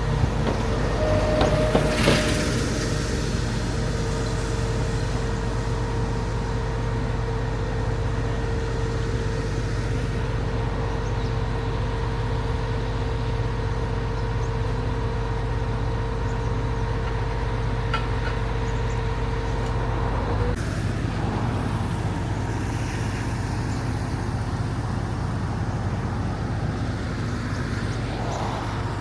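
Vehicle engine running steadily, a low rumble with a held humming tone, which cuts off abruptly about twenty seconds in. There is a short rush of noise about two seconds in.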